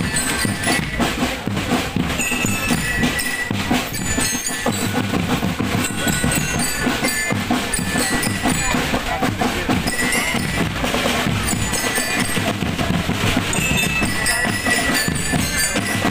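Marching drum band playing: dense snare and bass drum rhythms with drum rolls, and a pitched melody line over the drums.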